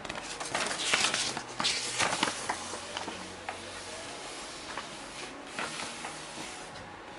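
A folded paper getting-started leaflet rustling and crackling as it is unfolded and handled. There is a quick run of crinkles in the first few seconds, then fainter, sparser rustles.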